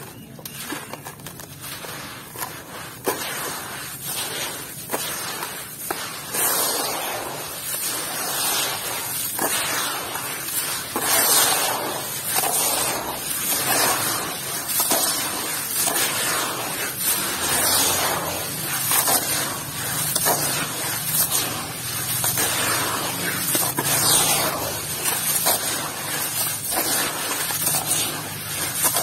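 Hands working crumbled block grit and powder in a plastic bowl, scooping and squeezing it. This gives a run of gritty crunching strokes about once a second, louder after the first few seconds.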